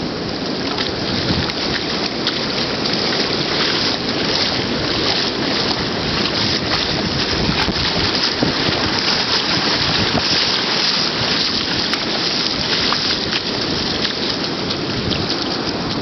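Baltic Sea surf washing in over the sand at the water's edge, a steady rush of water, with wind buffeting the microphone and bare feet splashing through the shallow wash.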